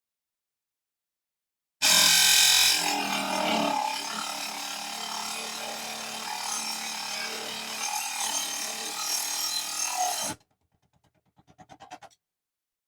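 Mini table saw cutting small aluminum channel: a dense metal-cutting noise over the motor's steady hum. It starts suddenly about two seconds in, is loudest at first, and cuts off abruptly near the end.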